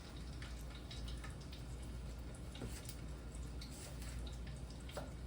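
Hot oil sizzling in a deep fryer as breaded pickle slices fry, with scattered crackles and pops throughout.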